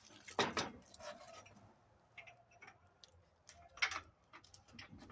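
Scattered light clicks and knocks of metal parts and hand tools being handled during go-kart assembly, a sharper knock about half a second in and two more just before the end.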